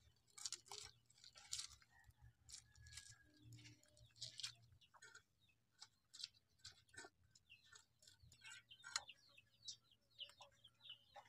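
Faint, irregular scraping strokes as fish scales are rasped off a small catla against the iron blade of a boti, a fixed curved kitchen blade.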